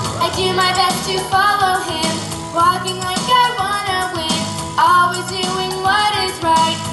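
A recorded pop song: a singer's lead vocal over instrumental backing, played for the puppets to mime to.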